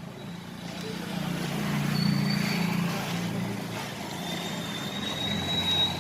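A low engine-like drone that swells to its loudest about two seconds in and then eases off, with a thin high whine towards the end.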